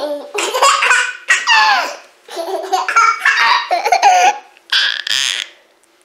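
A toddler laughing hard: high-pitched laughs in about four bursts with short breaths between them.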